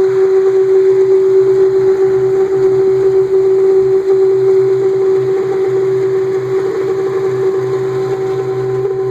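Car engine's intake making a horrible, loud, steady whining hum on one held pitch, over a lower buzz. It is the sign of a failing idle air control valve that needs replacing.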